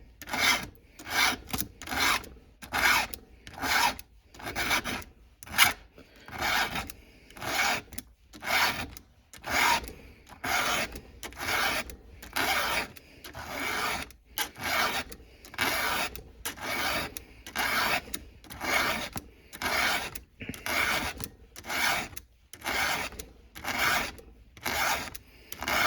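Round 13/64 chainsaw file rasping across a steel chain cutter tooth in steady hand strokes, a bit more than one a second. The tooth is dull and squared off, and it is being filed out to bring its cutting angle back.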